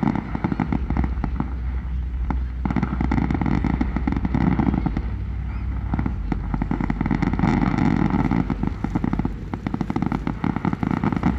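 Fireworks crackling in a dense, rapid stream of pops over a low steady rumble, easing off briefly twice.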